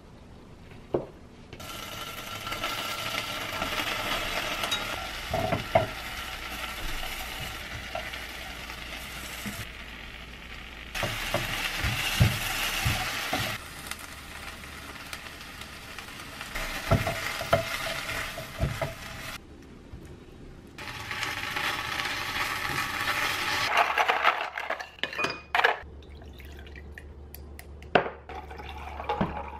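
Bacon, tofu, zucchini and onion sizzling in a frying pan in several stretches, with clinks and scrapes of a utensil against the pan. There is a single knife chop on a cutting board about a second in, and a few sharp clinks near the end.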